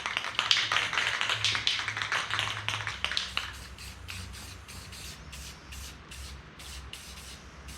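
Aerosol spray paint can hissing in dense passes for the first few seconds, then in a run of short, evenly spaced bursts, about three a second.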